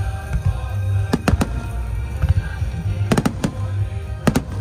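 Aerial firework shells bursting: sharp bangs in quick pairs, about six in all, over a steady low rumble, with music playing underneath.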